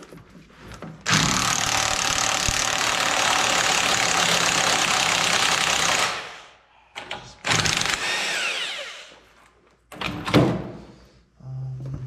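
Corded DeWalt power tool running on the bench vise's mounting bolts in a steady burst of about five seconds, then two shorter bursts that wind down. A sharp metal clank comes about ten seconds in.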